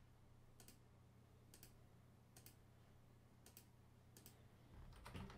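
Quiet computer mouse clicks, each a quick press-and-release double click, about one a second, over a faint steady low hum. A quicker cluster of clicks and a soft rustle comes near the end.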